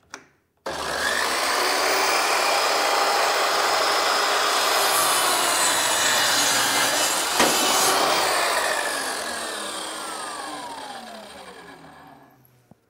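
Safety Speed Panel Pro 2 vertical panel saw's circular-saw motor starting abruptly and running steadily as the blade cross-cuts a piece of solid oak. It is switched off about eight seconds in, after a sharp click, and the blade spins down with a falling whine that fades over several seconds.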